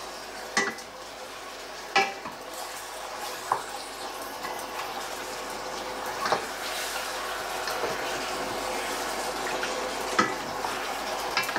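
Squid strips sizzling steadily in olive oil in a stainless steel pot, stirred with a wooden spoon that knocks sharply against the pot several times.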